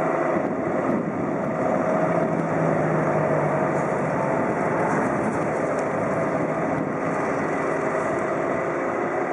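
Steady drone of a tugboat's diesel engine moving a cargo barge, running evenly with a faint hum of held tones in it.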